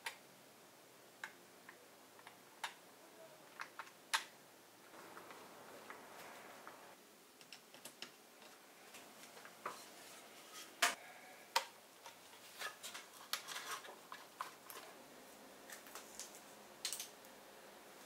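Hands handling cables, connectors and parts inside a small-form-factor PC case: scattered light plastic and metal clicks and taps, a stretch of rustling about a third of the way in, and a quick run of clicks past the middle.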